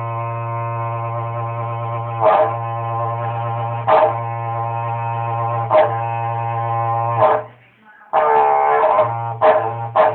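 A low, steady blown drone rich in overtones, accented by a sharp stab about every one and a half to two seconds. It breaks off after about seven seconds and resumes a moment later in quicker rhythmic pulses.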